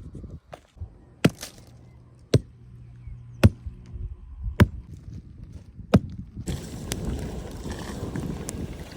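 Five sharp chopping strikes, about one a second, with a steady rushing noise setting in after the last one.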